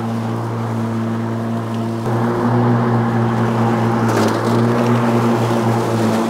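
Ryobi electric riding lawn mower running with its blades spinning: a steady electric-motor hum, stepping up a little in level about two seconds in.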